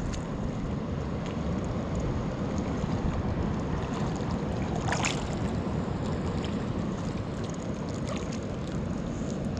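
Sea water sloshing and lapping around a floating inner tube, with wind buffeting the microphone; one brief splash about halfway through.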